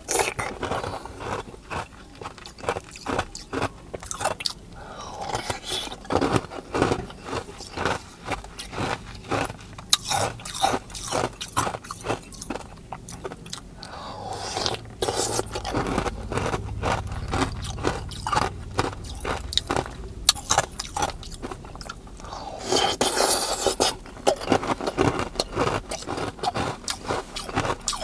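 Close-up crunching and chewing of ice cubes and ice cream, many sharp crunches in quick succession.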